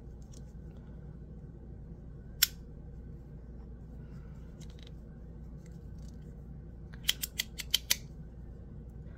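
MOT Ti Rhythm titanium fidget slider clicking as it is played with: one sharp click about two and a half seconds in, then a quick run of about eight clicks near the end, over a low steady hum.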